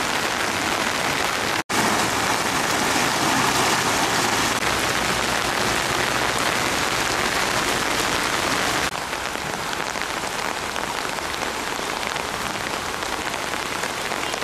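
Heavy rain pouring down as a steady, dense hiss. It cuts out for an instant about two seconds in and is a little quieter from about nine seconds on.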